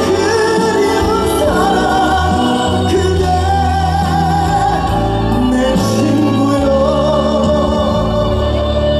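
Live band music with singing, the melody carried in long held notes that waver with vibrato over a steady bass.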